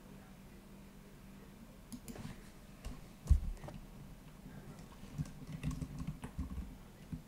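A few clicks and one louder thump about three seconds in, then typing on a computer keyboard: a quick run of key clicks in the last two seconds.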